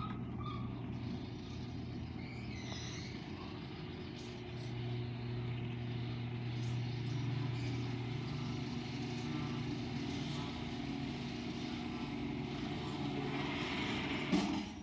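Electric garage door opener running as it raises a sectional garage door, a steady low hum that stops near the end once the door is fully open.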